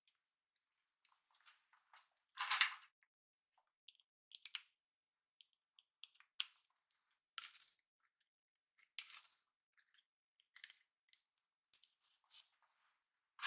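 Long hair being handled and styled by hand: faint, irregular brushing and rustling strokes of hair, the loudest about two and a half seconds in, with short quiet gaps between.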